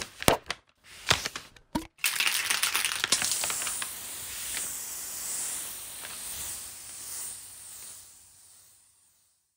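Paper tearing and crumpling sound effects: a few sharp snaps and rips in the first two seconds, then a dense crackling crinkle that slowly fades away.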